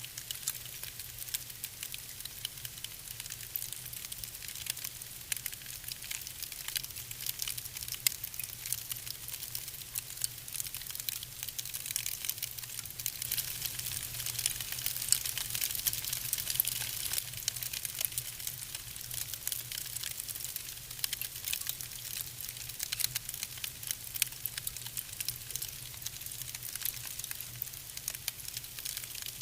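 Wood fire burning in a fireplace, crackling with a constant stream of small sharp pops over a hiss, a few louder pops standing out, and a faint steady low hum underneath.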